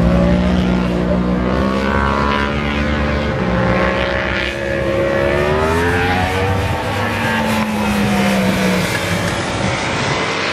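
Several sport motorcycle engines running on a track, their pitch climbing as they accelerate and dropping as they shift or ease off, with more than one bike heard at once.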